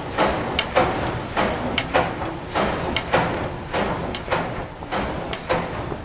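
PS Waverley's three-cylinder triple-expansion diagonal steam engine running steadily under way, its cranks and rods turning with a regular rhythm of clanks and sharp metallic clicks, about two knocks in each cycle of a little over a second.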